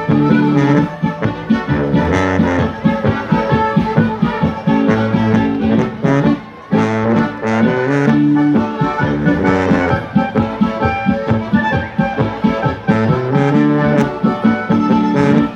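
Bavarian folk band playing live and instrumental: accordion and brass lead, with trumpet, clarinet, acoustic guitar strumming and a tuba playing an oom-pah bass line. The music briefly drops back about six seconds in before carrying on.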